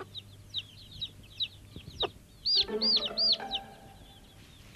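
Chicks peeping: a run of quick high chirps, then three loud drawn-out peeps about two and a half seconds in, over lower clucking from the hen.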